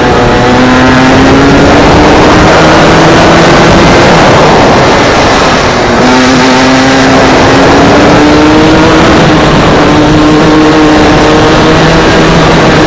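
Go-kart engine heard from the driver's seat under open-air wind noise, its pitch climbing steadily as it accelerates, dropping sharply about six seconds in as the driver lifts for a corner, then climbing again through the next stretch.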